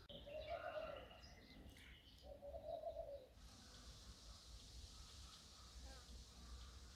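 Faint birdsong: two low coos, like a dove's, with a few chirps over them, then a soft hiss from about halfway.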